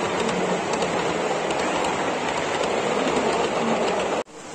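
A model train running past on an exhibition layout, heard under the steady noise of a busy hall. The sound drops out abruptly near the end and comes back quieter.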